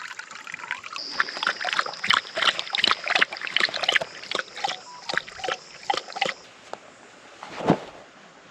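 A dog lapping water, a quick run of wet splashing laps that stops after about six seconds, with a steady high-pitched tone alongside it. A single louder knock follows near the end.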